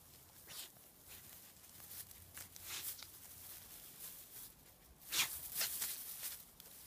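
Dry grass rustling and crunching in short bursts as a goat and a dog move and nose about in it, with the loudest cluster about five seconds in.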